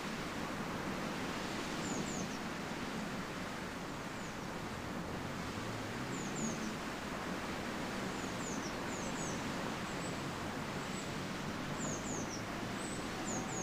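Outdoor ambience: a steady rushing noise with a small bird's high, thin chirps falling in pitch, in short runs of two or three every few seconds.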